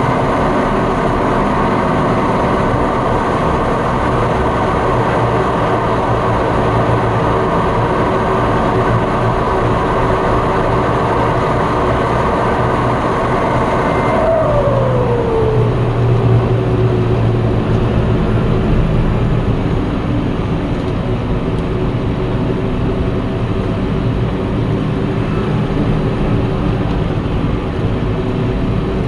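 John Deere 6230 Premium tractor's turbodiesel engine running steadily, heard from inside the cab, with a high turbo whistle. About halfway through the whistle stops and a whine falls in pitch over a few seconds as the turbo spools down, then the engine runs on more quietly.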